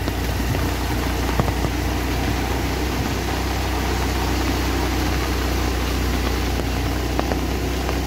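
A vehicle's engine running steadily as it climbs a hill road, a constant low drone under a steady rush of wind and heavy rain.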